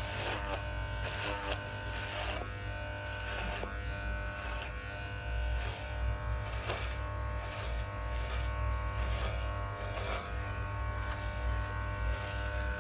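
Electric hair clipper buzzing steadily as it trims the short hair at the back of a child's neck, with short hissy bursts every second or so as the blades pass through hair.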